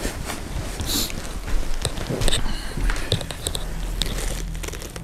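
Footsteps and rustling as a person climbs a staircase, with scattered clicks and thumps and camera-handling noise over a low steady hum.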